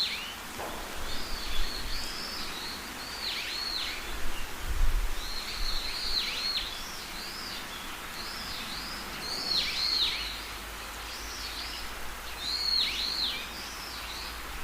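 A songbird singing: short phrases of clear, arching and sharply falling whistled notes, repeated about every three seconds over faint low background noise.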